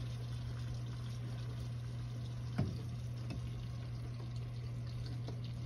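Thin cobbler batter poured from a ceramic bowl into melted butter in a cast-iron skillet, a soft steady pouring sound over a constant low hum. There is one light knock about two and a half seconds in.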